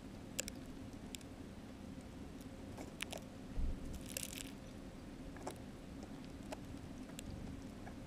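Small birds pecking at seed on snow right beside the microphone: scattered sharp taps and crunches, with a short rustle about four seconds in.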